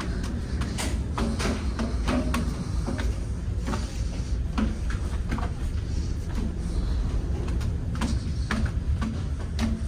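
Steady low rumble of a large passenger ship's engines, with scattered, irregular knocks and clicks over it.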